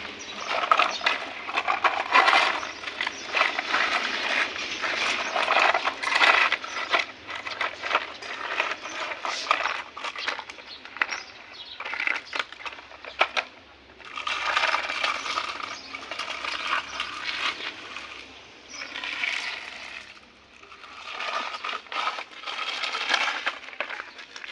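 Small hard plastic toys clattering and rattling as they are handled, in irregular bursts of quick clicks with short lulls between.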